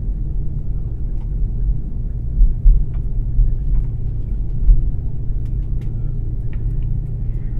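Cabin rumble of an Airbus A330 taxiing after landing: a steady low hum from the engines at idle and the rolling airframe, with a couple of brief thumps.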